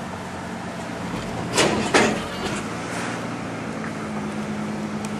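Car driving: a steady engine hum and road noise, with two short loud whooshes about a second and a half and two seconds in.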